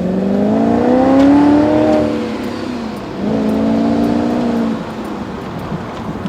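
V8 engine with a hole in its exhaust, accelerating with a raspy exhaust note. The pitch climbs for about two seconds, drops, then climbs again more gently from about three seconds in, easing off near the end.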